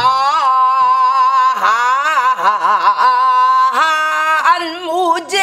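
A woman singing a long, drawn-out pansori phrase in full voice: held notes that slide and waver with heavy vibrato through the middle. A single buk drum stroke sounds right at the start.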